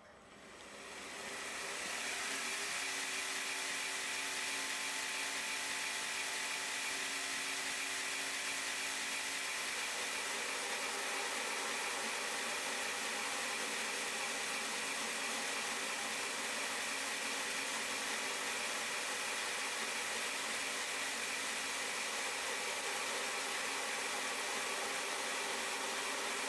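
Homemade 2x72 belt grinder spinning up over about two seconds, then running steadily with an even hiss and a faint whine.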